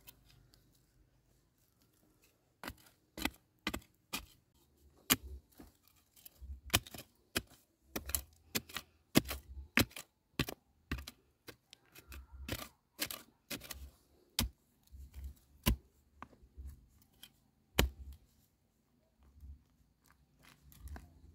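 A digging stick, a metal blade bound to a wooden pole, jabbing and prying into dry, stony earth around a wild tuber: irregular sharp knocks and scrapes, many with a dull thud, about one to three a second, with two short pauses.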